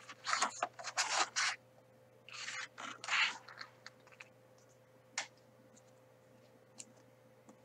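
Pages of a hardcover picture book being handled and turned: paper rustling and sliding in two spells over the first three and a half seconds, then a single light tap about five seconds in.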